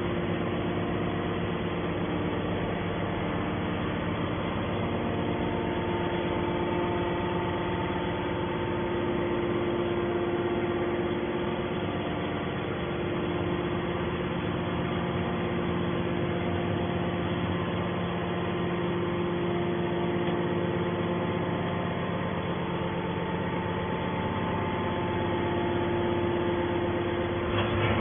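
Hydraulic scrap metal baler's motor and pump running with a steady, unbroken hum.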